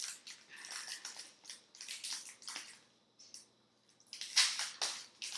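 Trading cards and their packaging being handled: a run of short, crisp rustles and crinkles, with a brief pause about three seconds in and a louder crinkle just after.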